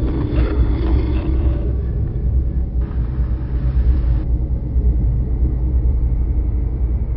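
Steady low rumble of a car ferry's engines through the deck, with a brief hiss about three seconds in.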